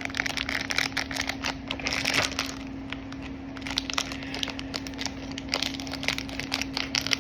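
Plastic blind-box packets crinkling and crackling as they are handled and opened by hand, in irregular rustling bursts over a faint steady hum.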